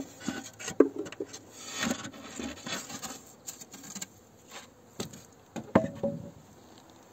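Wooden beehive parts being handled: scattered knocks, scrapes and rubs of wood on wood, with a couple of sharper knocks near the end.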